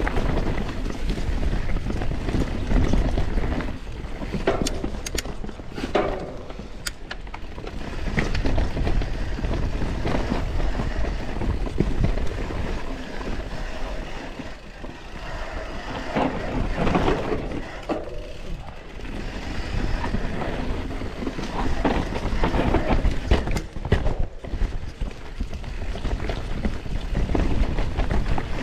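YT Capra Core 3 MX full-suspension mountain bike descending a rough trail: tyres rolling over dirt and rocks, with the chain and frame clattering and knocking over bumps, and wind rumbling on the microphone. The noise surges and eases with the terrain.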